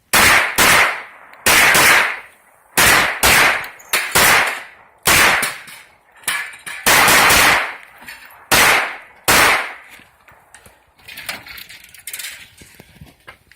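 A string of 9mm pistol shots from a Glock 19 fired during a practical-shooting stage, mostly in quick pairs about half a second apart with short pauses between groups. The shots are loud for about the first nine seconds, then give way to softer, scattered sounds near the end.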